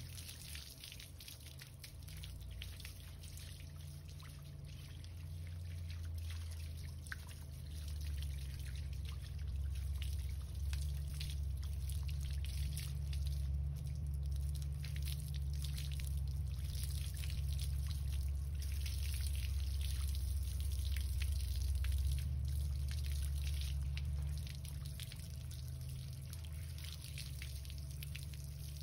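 Water from a garden hose running through a wet Siberian husky's coat and splashing and dripping onto a tiled floor. A low steady hum lies underneath and is louder through the middle.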